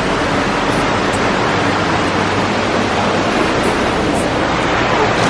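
Meat sizzling on a mesh grill over hot charcoal: a steady hiss.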